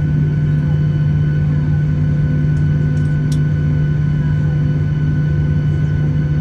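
Aircraft engines running with a steady drone and a constant low hum, a few faint clicks about halfway through.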